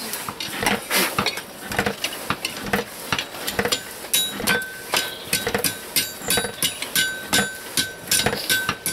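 Hand hammer striking hot steel on an anvil in a steady run of blows, about two or three a second. From about four seconds in, a high ringing note from the anvil hangs between the strikes.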